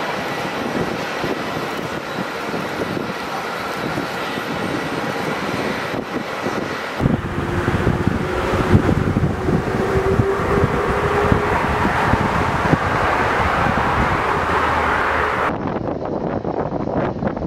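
Jet airliner landing, in three cut-together clips. First an Airbus A380's engines give a steady rush with faint whining tones. About seven seconds in it cuts to a louder jet rush, and near the end to gusts of wind buffeting the microphone.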